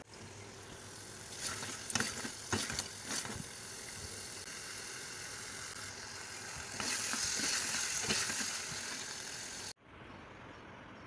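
Boneless chicken in masala gravy sizzling in a steel pot, with a few clicks and scrapes of a spoon against the pot in the first few seconds. The frying hiss grows louder for a few seconds, then cuts off suddenly to faint room tone near the end.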